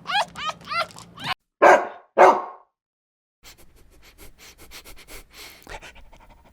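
An animal giving quick, short, high yelping calls, then two loud harsh barking calls. This is followed by a sudden cut to silence and then faint rustling and clicking.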